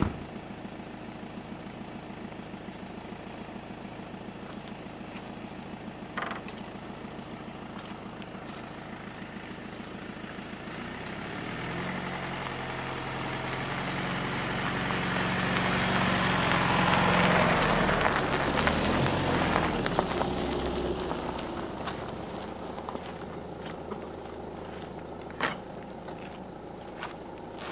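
Volkswagen van idling, then driving slowly through on a gravel track and passing close by: engine and tyre noise swell to a peak about two-thirds of the way in, then fade away. A sharp knock from the wooden gate about six seconds in and another near the end.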